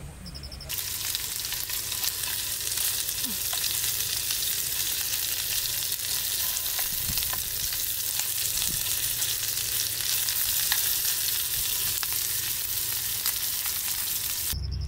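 Cubes of beef searing in a small square pan over a camping gas stove, a steady sizzle with scattered crackles that starts abruptly about a second in.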